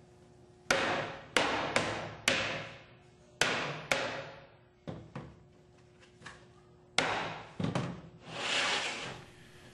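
Mallet blows on a particleboard cabinet's top panel, knocking the dowel joints closed: about ten sharp knocks in irregular groups of one to three. A short scraping rush follows near the end.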